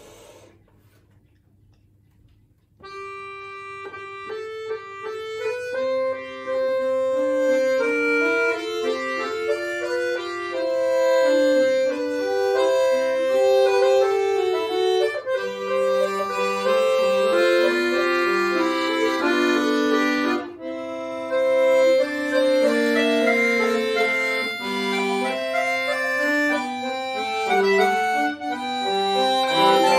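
Bayan (chromatic button accordion) playing. It comes in about three seconds in, after a short near-silent pause, with sustained notes moving in several lines at once, and breaks off briefly about two-thirds of the way through.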